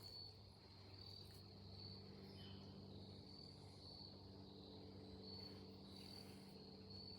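Faint, high-pitched insect chirps repeating about once or twice a second, over a faint steady low hum.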